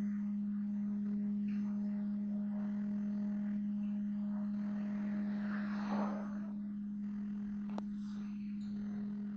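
Steady hum of running machinery: one constant low tone with fainter overtones, unchanging in pitch, with a single faint click near the end.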